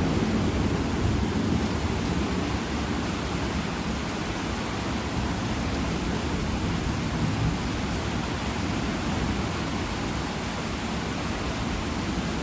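Heavy thunderstorm rain falling steadily, with a low thunder rumble fading away over the first couple of seconds.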